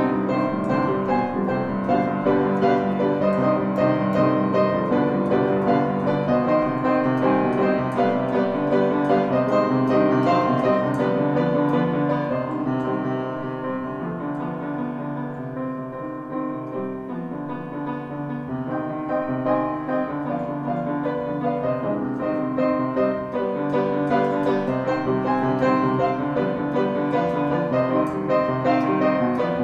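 Background piano music, softer for several seconds in the middle.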